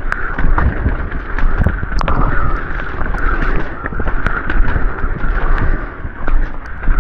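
Enduro mountain bike riding fast down a rough trail: tyres on dirt and rock, with frequent knocks and rattles from the bike and wind buffeting the microphone.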